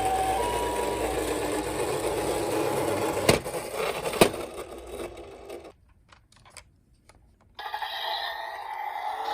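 Toy ambulance minicar: its two-tone alternating siren ends less than a second in, giving way to a steady mechanical rattling whirr with two sharp clicks about a second apart. The noise fades to near silence for about two seconds before another rattling sound starts near the end.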